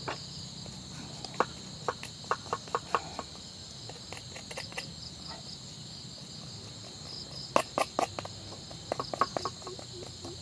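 A knife chopping and cutting at a turtle on a wooden log, heard as short clusters of sharp knocks, loudest near the end. A steady high drone of insects runs underneath.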